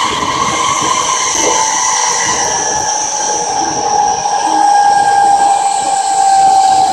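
Seibu 30000 series electric train under way: the whine of its VVVF inverter and traction motors falling slowly in pitch as the train slows, over the rumble of the wheels on the track.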